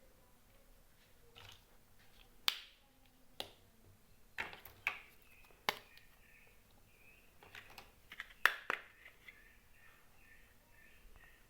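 Small plastic toy kitchen pieces being handled, giving irregular sharp clicks and taps, about a dozen in all and loudest in a cluster about eight seconds in.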